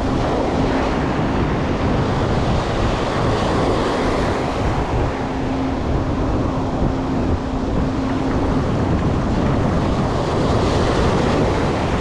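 Ocean surf breaking and washing up the sand in the shallows, a steady rush of water, with wind rumbling on the microphone.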